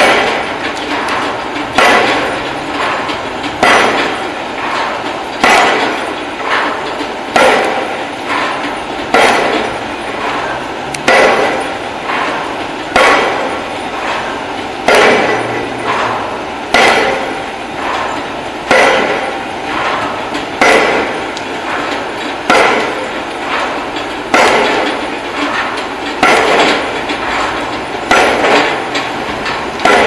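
Pile driver's drop hammer pounding a concrete pile into the ground, one heavy, sharp blow about every two seconds, each ringing out and dying away before the next.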